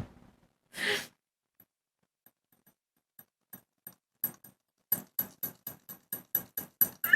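Small wind-up pumpkin kitchen timer ticking: faint at first, then louder and regular at about four ticks a second from about five seconds in. A single click at the very start and a short breath about a second in.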